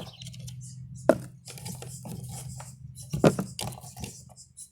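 Hands and a tool working through potatoes and loose soil: a sharp knock about a second in and a few more knocks near three seconds, with light scraping and rustling between.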